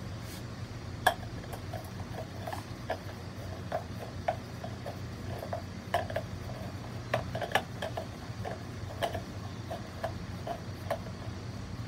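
Irregular light clicks and taps, a few a second, of small hard pieces being handled during hand work on a mount, over a steady low hum. The sharpest click comes about a second in.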